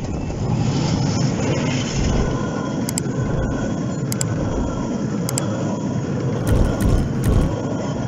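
Coaches of a 15-inch-gauge miniature railway train rolling past at close range: a steady rumble with paired wheel clicks over rail joints at regular intervals about a second apart, and a quicker run of louder clicks and thumps near the end.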